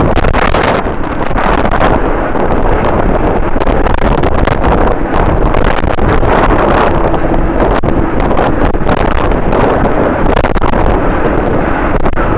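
Strong wind blowing straight onto the microphone: a loud, continuous, flickering rumble.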